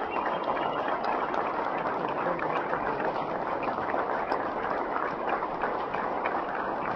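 Steady applause from a football crowd and the lined-up players, a dense, even patter of clapping.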